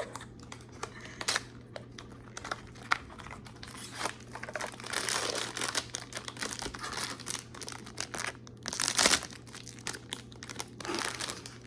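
Hands opening a blind-box figurine package: crinkling and tearing of the wrapper, with many small clicks and rustles and a louder tear about nine seconds in.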